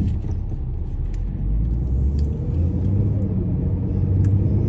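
Low, steady rumble of a car heard from inside the cabin, growing slightly louder, with a few faint clicks.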